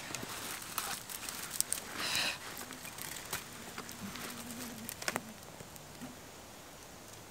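Dry twigs rustling and snapping as they are laid by hand onto a freshly lit tinder fire, with scattered light clicks and crackles.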